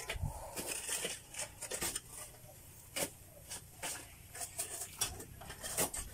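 Metal shovels scraping and striking stony soil: a string of irregular sharp scrapes and clinks.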